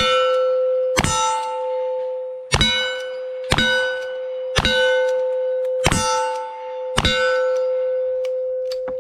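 Single-action cowboy guns fired about once a second, seven shots, each hit making a steel target ring with a sustained clang. A last faint crack comes near the end.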